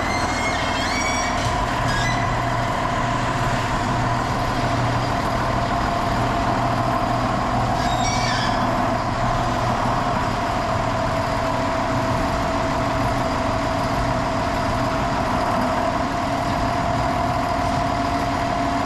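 John Deere 7405 tractor's diesel engine running steadily after a transfer case repair, with a couple of brief high chirps near the start and about eight seconds in.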